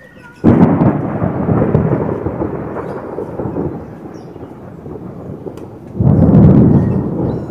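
Two thunderclaps. The first breaks suddenly about half a second in and rolls on as a low rumble, fading over several seconds. The second starts about six seconds in.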